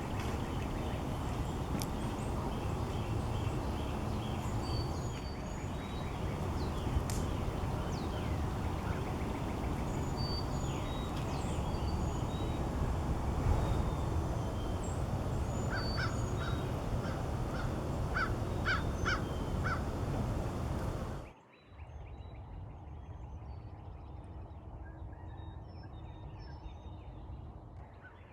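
Birds calling outdoors over a steady low background noise, including a run of short repeated calls about two thirds of the way through. The background drops abruptly to a quieter level near the end.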